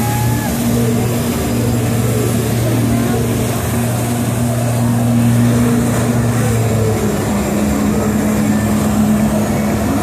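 Jet-ski engine driving a flyboard, running steadily under the rush of water jets spraying onto the water; the engine note drops slightly about seven seconds in.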